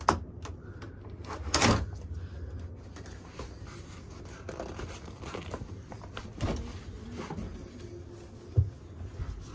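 Clicks and knocks of a hand working a train cabin's window blind and its handle. There is a sharp click at the start, the loudest knock about a second and a half in, a run of smaller clicks in the middle and a dull thump near the end, over a steady low hum.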